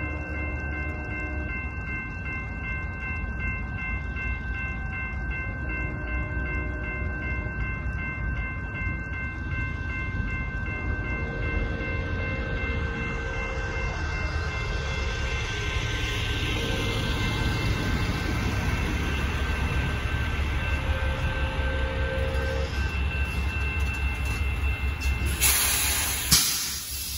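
Railroad crossing warning bell ringing rapidly and steadily while an approaching Amtrak train sounds its horn in several separate blasts, under a steady low rumble. Near the end a semi truck's air brakes let out a loud, sharp hiss as it stops at the crossing.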